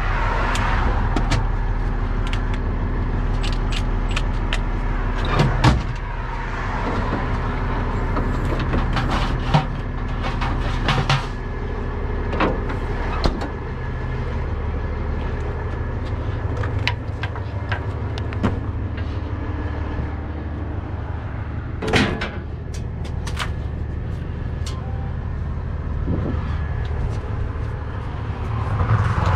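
A truck engine idling steadily, with scattered metallic clicks and clanks of hand tools being handled, the sharpest about two thirds of the way through.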